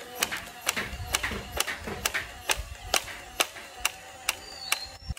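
Foam-dart blaster firing repeatedly, a sharp shot about twice a second.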